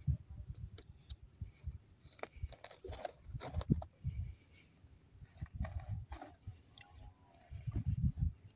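Small knife cutting holes into a raw gourd: irregular short crunches, clicks and scrapes as the blade goes into the rind, with low handling bumps.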